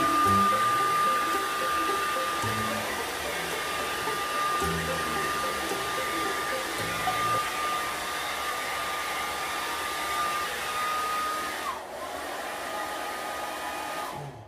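Handheld hair dryer blowing steadily with a thin high whistle. About twelve seconds in the whistle dips and falls away, and the dryer cuts off suddenly near the end.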